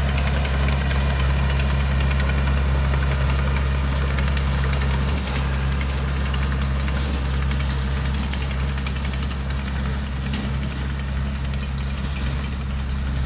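Heavy diesel engine of an earthmoving machine running steadily with a deep, even drone.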